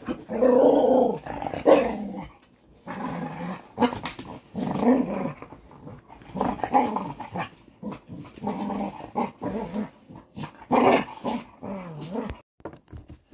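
Two dogs growling at each other in a string of short rough bouts as they wrestle.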